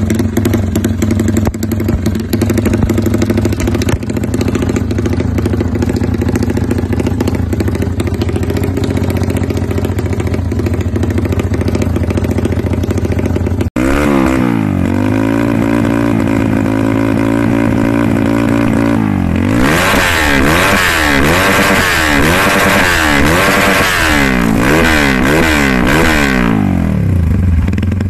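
Trail bike engines running through a Norifumi Rocket 4 competition stainless exhaust. The first bike runs at a steady idle. After a cut about halfway, a Honda CRF's single-cylinder engine is blipped again and again, its exhaust note rising and falling about once a second and growing louder near the end.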